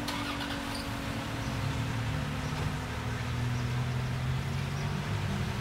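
Thunderbolt 1003 mechanical warning siren winding down after its one-minute alert test, its last low tone sliding slowly lower and fading over the first couple of seconds. A vehicle engine runs steadily beneath it and becomes the louder sound from about a second and a half in.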